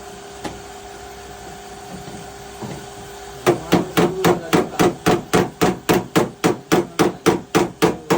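Hammer beating sheet metal on a car body panel during dent repair. A fast, even run of strikes, about four a second, starts about three and a half seconds in. Before that there is only a steady hum.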